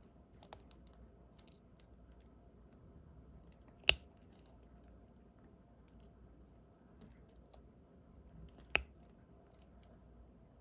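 Faint ticks and taps of a diamond painting pen picking up and pressing resin drills onto the canvas, with two sharper, louder clicks, one about four seconds in and one near nine seconds.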